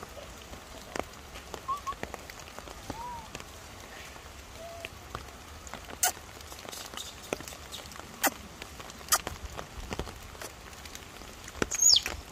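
Steady hiss of light rain in forest with scattered drip-like clicks. A few faint short chirps come in the first five seconds, and near the end there is a sharp click with a quick falling squeak.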